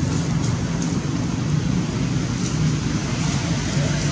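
Steady low outdoor background rumble, with a few faint light ticks over it.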